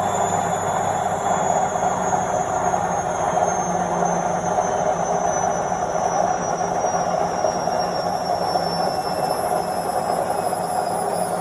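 Washing machine on its spin cycle: the drum spinning with a steady whooshing rumble and a low hum, under a faint high whine that slowly drops in pitch.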